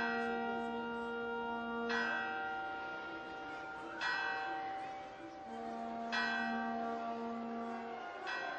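Church bell struck in slow single strokes about every two seconds, each stroke left to ring on, with the note changing from stroke to stroke.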